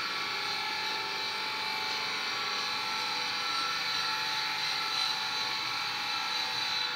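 Steady hum of running workshop machinery, made up of several high whining tones that hold their pitch, with a light knock about five seconds in.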